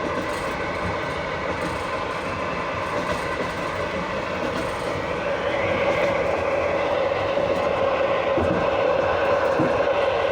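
Passenger carriage's wheels and brakes under continuous braking on a long downgrade, heard from below the floor: a steady rumble of wheels on rails. About halfway through it grows louder and a steady whine comes in.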